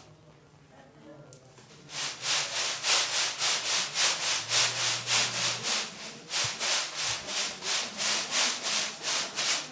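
Rhythmic scraping strokes, about three a second, beginning about two seconds in.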